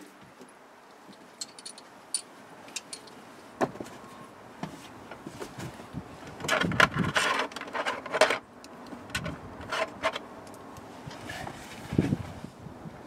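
Clicks, clinks and rustling of hands and metal fittings inside a car's front footwell while a front seat is being fitted. The clatter gets busier about six to eight seconds in, with a couple of thumps near the end.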